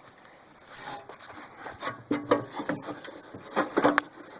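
Plastic wiring-harness connector being worked off a mower's safety switch: irregular scraping and clicking of plastic on plastic, with a couple of short squeaks. It starts about a second in and is busiest in the second half.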